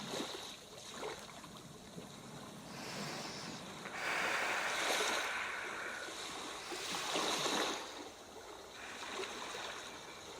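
Sea waves washing onto a shore, with the surf swelling and falling away: a louder wash about four seconds in and another about seven seconds in.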